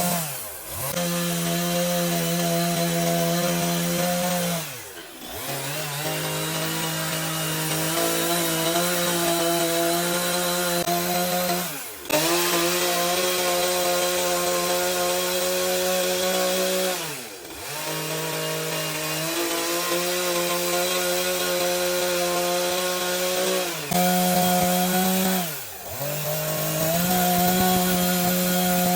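Electric power tool motor running while cutting wood, its pitch stepping up and down with the load. About every five to seven seconds it briefly slows and spins back up.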